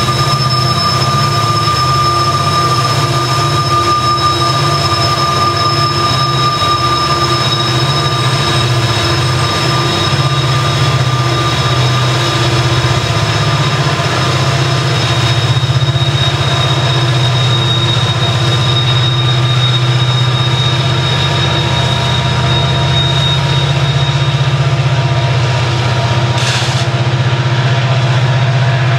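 A set of Montana Rail Link SD70ACe diesel locomotives working as mid-train helpers in a coal train, their engines giving a loud, steady deep drone as they pass, with several steady high-pitched tones running over it. A brief sharp sound comes near the end.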